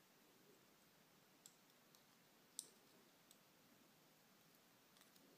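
A few faint, sharp clicks of tweezers and small lock parts being handled while the brass pin-tumbler plug of an American 1106 padlock is reassembled, about five clicks with one louder click about two and a half seconds in.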